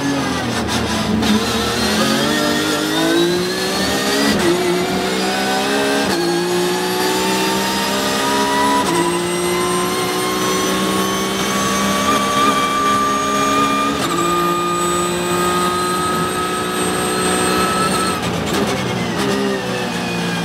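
Porsche 911 GT3 Cup race car's flat-six engine heard from inside the cabin under full throttle, accelerating hard with four quick upshifts in the first nine seconds, then holding one long rising pull down the straight. Near the end the revs fall away as the car brakes and downshifts.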